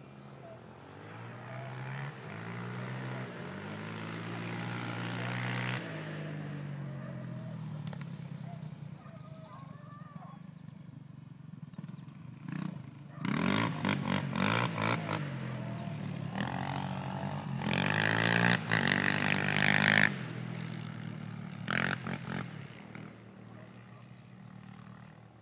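Beagles baying on a rabbit track, mixed with an engine whose pitch rises and falls. The sound gets louder in two stretches in the second half.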